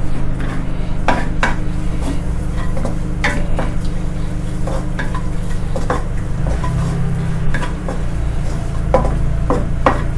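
Wooden spatula scraping and knocking irregularly against a nonstick wok as minced garlic is stirred and fried in oil over low heat. A steady low hum runs underneath.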